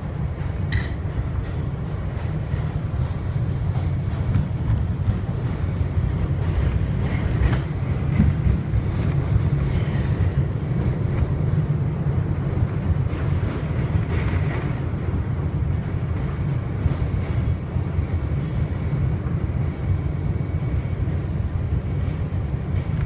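Inside an R68A subway car running on an elevated line: a steady low rumble of wheels on rail, with a few faint brief higher squeaks and clicks scattered through.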